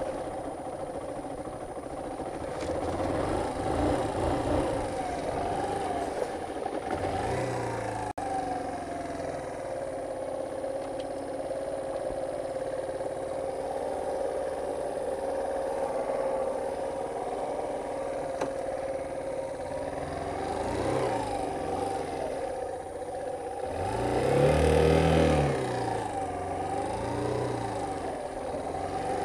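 Motorcycle engine running while riding, its pitch rising and falling several times as the throttle is worked, with the loudest rev near the end.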